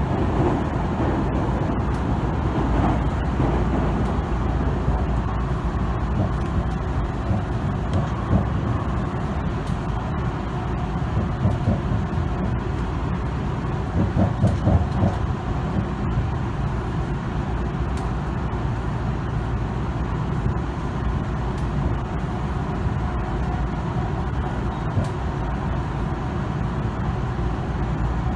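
Electric commuter train running at speed, heard from inside the passenger car: a steady rumble of wheels on rail, with a few louder knocks about halfway through.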